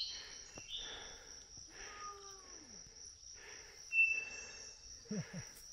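Steady high-pitched insect drone, like crickets, with soft repeated rustling of steps over dry pine needles and a brief high chirp about four seconds in.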